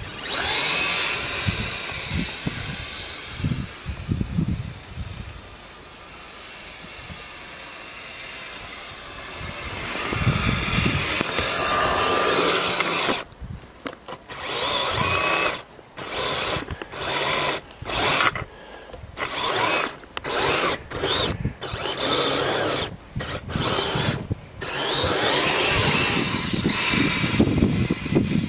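Twin brushless electric motors (2838, 2800KV) of an RC snowcat whining as the throttle is applied. About halfway through, the power comes in short bursts that start and stop abruptly, with the pitch rising and falling in revs near the end.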